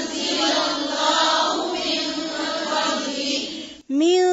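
Chanted Qur'an recitation in a woman's voice. Near the end, after a short break, one clear voice starts a new phrase and holds a long, steady note.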